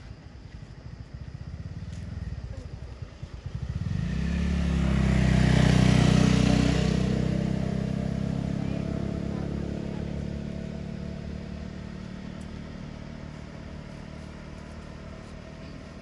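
A motor vehicle passing close by on the road: its engine and tyres swell up about four seconds in, are loudest about six seconds in, then fade slowly away.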